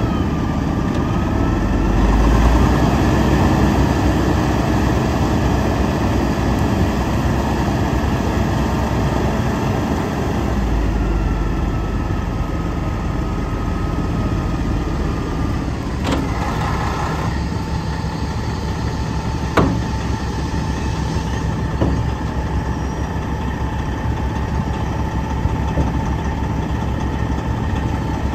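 Detroit Series 60 12.7-litre six-cylinder diesel of a Kenworth T800 dump truck running while the hydraulic dump bed is raised and then lowered. A steady whine sits over the engine and changes pitch about halfway through, and a few sharp clacks come in the second half.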